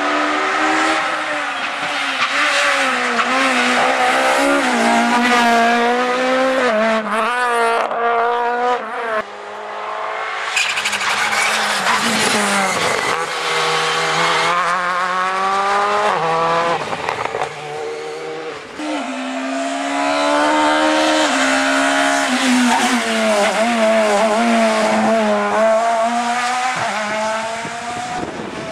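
Rally cars at full throttle on a tarmac stage, passing one after another. Each engine note climbs and then drops sharply as the driver shifts up through the gears.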